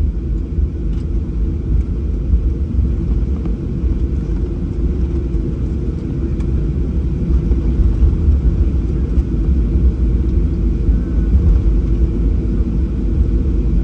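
Steady low cabin rumble inside a Boeing 737-800 taxiing after landing, from its engines and its wheels rolling on the ground.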